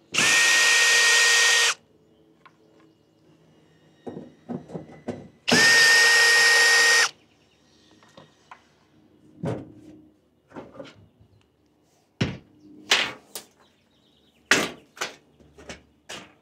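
Power drill running twice, about a second and a half each time, a steady motor whine, backing out the screws of an air-conditioner condenser's access panel. Scattered clicks and knocks follow as the panel is worked loose and lifted off.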